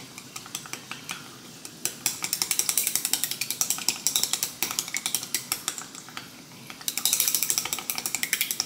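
Chopsticks beating an egg in a glass measuring cup, ticking rapidly against the glass. The ticking comes in two fast spells, the second after a short pause near the end.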